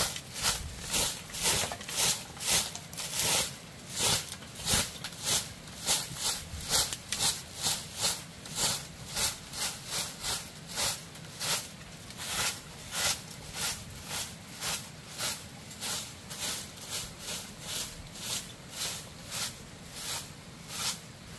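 Hand-tied dried-grass broom sweeping a flagstone floor: short, rhythmic swishes at about two strokes a second, a little softer in the second half.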